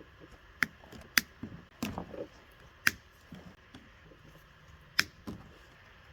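A few sharp snips and clicks, about six spread over several seconds, with faint handling noise between them: hand tools and parts being worked while replacing a tow car's trailer-lighting wiring plug.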